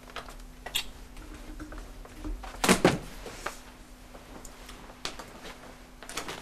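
Door sounds in a small room: a few light knocks and clicks, with a louder double thud about three seconds in, over a steady low hum.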